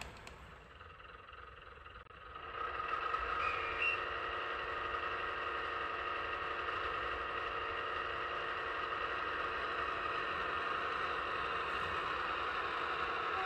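OO-gauge model diesel multiple unit running: a steady engine-like hum with several held tones. It comes in louder after about two and a half seconds, with a brief high squeal just before four seconds.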